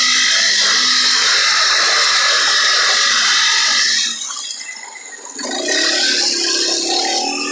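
ATV engine running under way with heavy wind rush on the microphone. About four seconds in the engine eases off and the sound drops, then it picks back up with a rising pitch.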